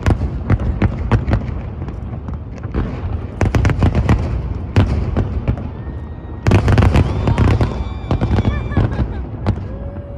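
Fireworks display going off in rapid, irregular bangs and crackles over a low rumble, with a dense burst of bangs about six and a half seconds in.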